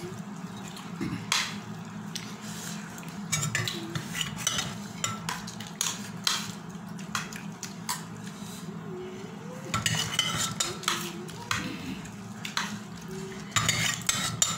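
Metal spoons and a steel ladle clinking and scraping against steel plates as food is served and eaten, many short irregular clinks over a steady low hum.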